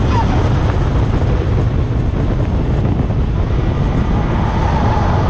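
Car at speed on a race track, heard from a camera mounted low on the outside of the car: a steady, loud rumble of wind and road noise.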